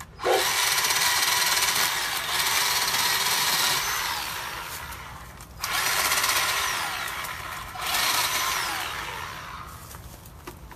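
Bauer 20V cordless electric chainsaw cutting through a tree limb. The motor runs in three surges, its pitch falling away as it slows after each one.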